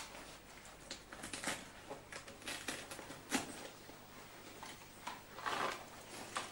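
Irregular scratchy strokes and rustles of painting on a paper sheet laid on the floor, with a sharp click a little over three seconds in and a longer, louder rustle about five and a half seconds in.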